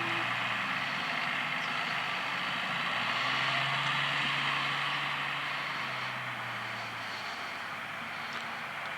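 New Holland TM120 tractor engine running as it pulls a plough. Its hum grows louder a few seconds in and fades about seven seconds in, over steady rushing noise.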